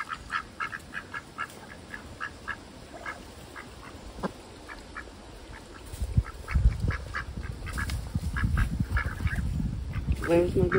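A group of domestic ducks quacking in quick runs of short, soft calls, about three or four a second, thinning out in the middle. A low rumble joins them from about six seconds in.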